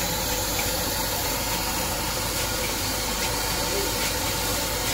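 Fried rice sizzling in a large iron wok over a strong gas burner while it is stirred with a long-handled spatula: a steady, even hiss.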